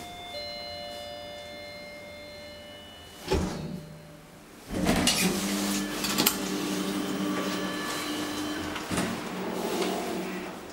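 Inside a Schindler hydraulic elevator car: thin ringing tones fade over the first three seconds, and a door shuts with a single knock a little over three seconds in. From about five seconds a steady low hum with a few knocks runs as the car travels, dipping briefly near the end.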